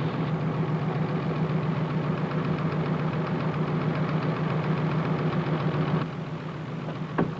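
Oil drilling rig's engine running steadily with a fast, even pulse, dropping in level about six seconds in. A few sharp knocks come near the end.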